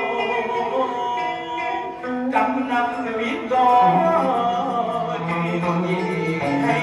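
A voice singing a long, sliding, held-note passage of hát bội (Vietnamese classical opera), with a low steady note joining about four seconds in.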